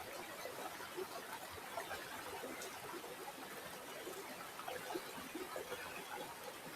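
Water flowing and trickling steadily in a small stream, with a constant patter of small splashes and gurgles.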